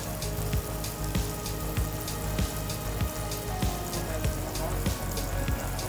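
Seasoned salmon fillet searing in hot oil in a very hot pan: a steady sizzle with frequent crackles and spits of oil.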